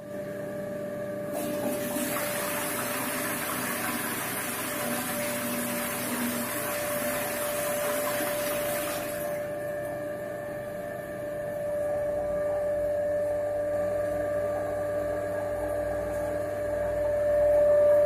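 Neycer toilet flushing: water rushes into the bowl for about eight seconds, then drops to a quieter refilling flow. A steady tone runs underneath throughout.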